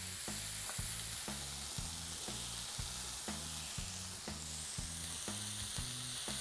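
Steady frying sizzle from chicken searing in a grill pan and teriyaki sauce bubbling in a frying pan as it is stirred with a wooden spatula. Under it runs background music with a steady beat and a stepping bass line.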